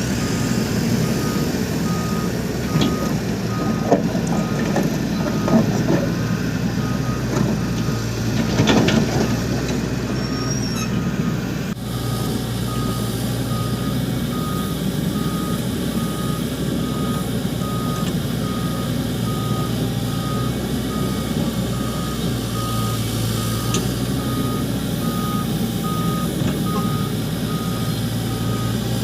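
Backup alarm on heavy construction machinery beeping in an even, steady series at one pitch, over a diesel engine running. Scattered knocks and clatter come in the first ten seconds or so.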